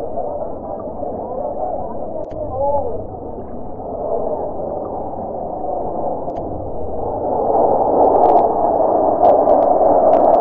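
Fighter jet's engine noise, a muffled rumble that grows louder over the last few seconds as the jet comes closer, with spectators' voices underneath.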